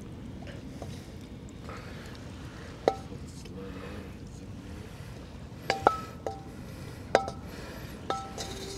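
A wok clinking as a stir-fry is scraped out of it into a ceramic bowl: several sharp clinks, each with a brief metallic ring, one about three seconds in and more close together near the end.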